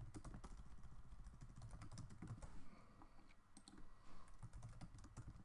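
Faint typing on a computer keyboard: a quick, irregular run of keystroke clicks.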